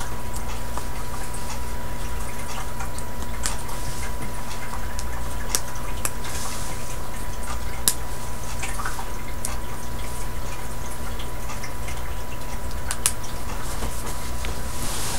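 Steady low hum with a thin high tone over it, and a few sharp light clicks, about five spread through, of the snaps on a baby sleeper being pressed shut.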